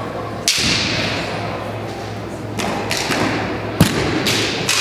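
Kendo sparring: bamboo shinai clacking together and feet stamping on a wooden gym floor, a string of sharp knocks with one loud sharp hit a little under four seconds in.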